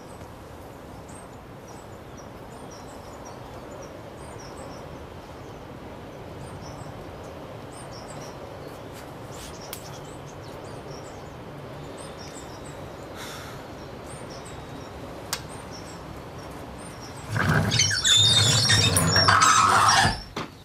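Small birds chirping over a steady outdoor background hum. Near the end a loud, harsh noise bursts in for about three seconds, then cuts off abruptly.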